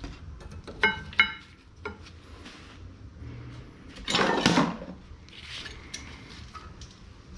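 Metal tools and brake parts being handled: two sharp, ringing metal-on-metal clinks about a second in, then a louder, rougher clatter lasting under a second a little past the middle.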